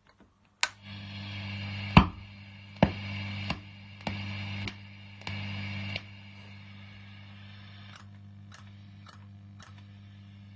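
Amplifier popping each time its master volume is switched between 1 and 2. There is a string of sharp pops, the loudest about two seconds in. Between the pops the amp's mains hum and hiss step louder and quieter, and several lighter clicks come near the end. The popping is the fault the owner is showing.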